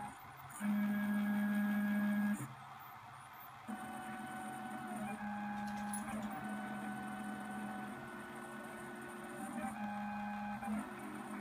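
Stepper motors of a CNC drawing machine whining in steady tones as the pen is moved, the pitch switching every second or two as the moves change; the loudest stretch comes about a second in and lasts under two seconds.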